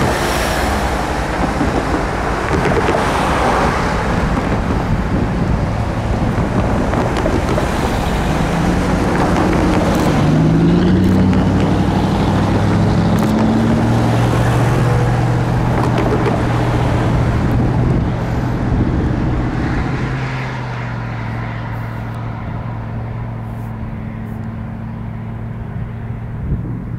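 BNSF freight train's diesel locomotive running, its engine note rising in pitch for several seconds and then holding steady, over a loud rush of noise. The sound drops and dulls about twenty seconds in.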